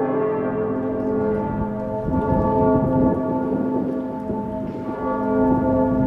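The bells of Cologne Cathedral ringing in full peal, many overlapping bell tones sounding and decaying as fresh strikes come in. A low rumbling noise rises under the bells about two seconds in and lasts a second or so.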